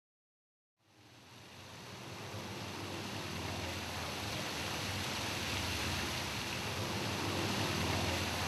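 Fountain water splashing, a steady rushing hiss that fades in about a second in and grows over the next two seconds.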